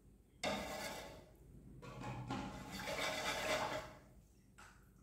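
Water rushing in two bursts. The first starts suddenly about half a second in and fades within a second. The second swells up and stops at about four seconds.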